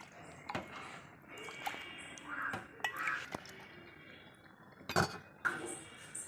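Metal kitchen utensils clinking and knocking against pots and containers, a scatter of sharp clicks with the loudest knock about five seconds in.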